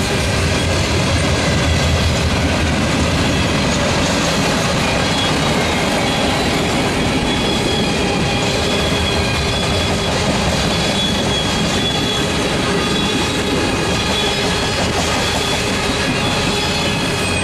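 Freight cars of a long freight train, tank cars and boxcars, rolling past at speed: a steady, loud rumble of steel wheels on rail, with thin high-pitched squealing tones held over it.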